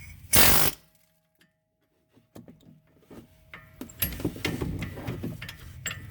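Small pneumatic air hammer firing a short, loud burst about half a second in, driving on the strut's lower through bolt. Scattered clinks follow, and then a clattering, rattling stretch of metal working over the last two seconds.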